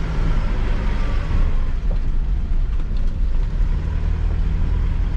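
Mitsubishi L200 Triton pickup's engine running steadily under load while climbing a sandy dirt track in two-wheel drive, the wheels slipping a little in the sand.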